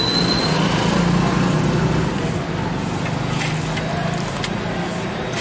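Steady street traffic noise with a vehicle engine running nearby: a low hum under a broad hiss.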